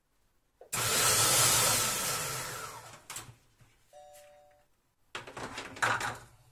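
Monsieur Cuisine Connect food processor on its one-second turbo pulse: the motor spins the blades with a loud whir through chopped mushrooms for about two seconds, then winds down with a falling pitch. About a second later the machine gives a short two-tone electronic beep, and near the end come a few knocks and clatter as the lid and bowl are handled.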